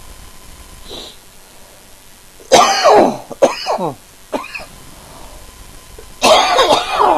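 A man coughing and clearing his throat in two bouts, each a few harsh bursts, the first about two and a half seconds in and the second near the end.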